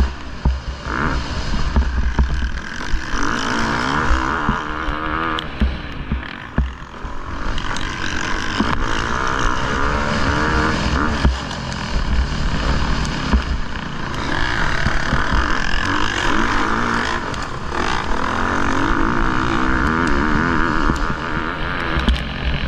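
Motocross bike engine revving up and down again and again as it accelerates and backs off, with heavy wind rumble on the onboard microphone and scattered knocks.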